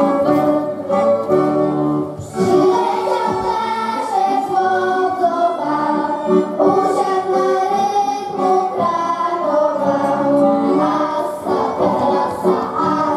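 Music: a Polish folk song sung by a group of voices over instrumental accompaniment.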